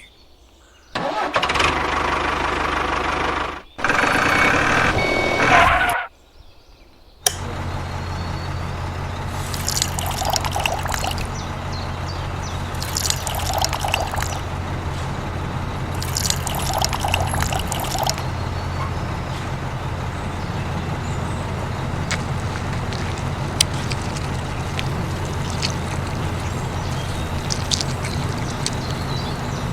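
Two loud noisy bursts, then an engine sound that catches about seven seconds in and runs steadily with a low hum. Brighter surges come and go a few times near the middle.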